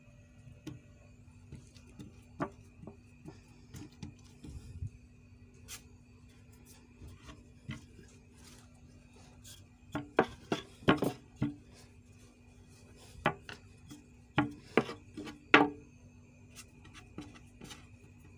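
Wooden rolling pin rolling out roti dough on a board: rubbing and knocking against the board, loudest in two bursts about halfway through and again a few seconds later, with scattered single taps elsewhere. A faint steady hum sits underneath.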